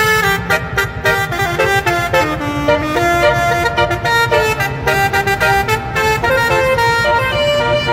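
Basuri telolet horn playing a melody through its horn trumpets, sounding loud, brassy notes that step from one pitch to the next without a break, over a steady low rumble.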